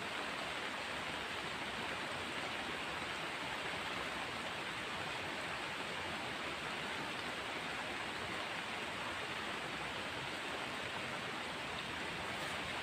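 Steady hiss of rain falling, an even, unbroken wash of noise.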